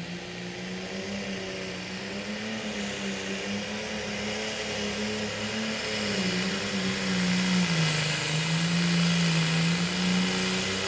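Pro Stock pulling tractor's turbocharged diesel engine working hard under full load as it drags the weight-transfer sled down the track. Its pitch wavers, dips briefly about eight seconds in and climbs back, and it gets louder toward the end.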